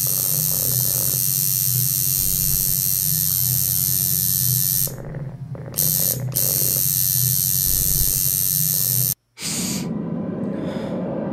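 Steady electrical hum under a loud high hiss. The hiss drops away briefly about five seconds in, everything cuts to silence for a moment about nine seconds in, and a rougher, duller hiss carries on after.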